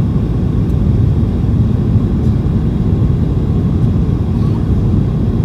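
Steady low rumble inside the passenger cabin of a Boeing 737-800 with CFM56-7B engines, heard from a seat over the wing.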